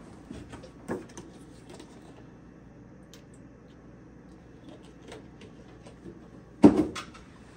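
Faint clicks and taps of kitchen utensils and containers while more cream is added to beaten egg yolks, with one loud, sharp knock near the end.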